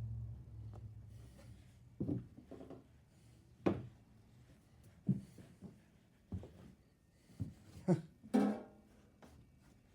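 Objects being handled and set down on shelves: a string of separate knocks and clunks about a second apart, a few with a short ringing tone, the loudest near the end. A low hum fades out in the first second.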